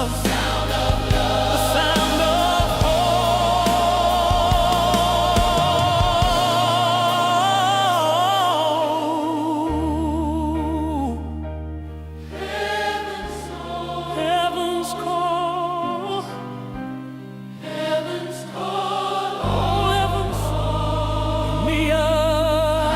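Gospel choir singing with vibrato over a steady bass accompaniment, thinning to a quieter stretch midway before the full sound returns.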